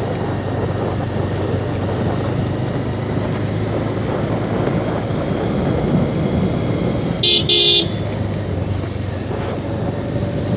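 Motorcycle running steadily along a rough road, with engine rumble and wind on the microphone, and two short horn beeps in quick succession a little past the middle.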